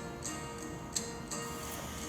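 Instrumental background music with steady held notes and a few sharp ticks.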